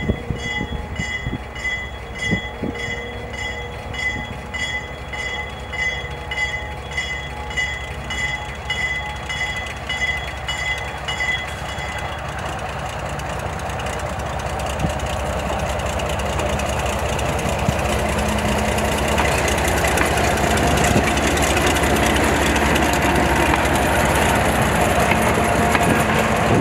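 A locomotive bell ringing about twice a second stops about twelve seconds in. Then the small Plymouth 35T diesel switcher draws near and runs past with its cabooses, its engine and rolling wheels growing steadily louder toward the end.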